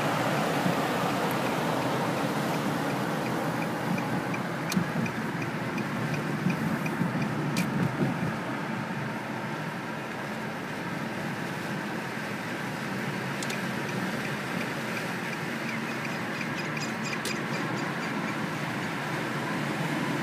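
Steady road and engine noise heard from inside a moving car, with a regular light ticking at about three a second for a few seconds, twice.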